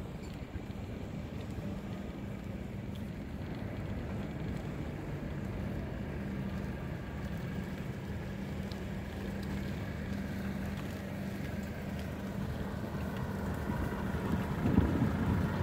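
Wind buffeting the microphone over the running noise of a bicycle ridden across asphalt, with a low steady hum underneath. The wind noise swells near the end.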